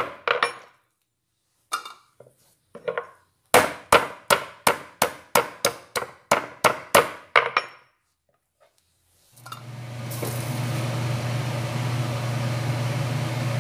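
Ginger being smashed with a metal meat-tenderizer mallet on a hard plate: a few scattered knocks, then a quick run of about a dozen blows, close to three a second. Near the end the blows stop and a steady low hum with hiss takes over.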